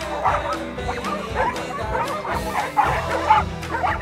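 A pack of dogs barking, yipping and whining excitedly in quick overlapping calls, over background music with sustained low notes.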